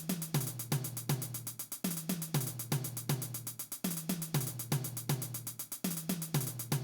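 Music with a steady drum beat: evenly spaced drum and hi-hat hits over a repeating pattern of low notes.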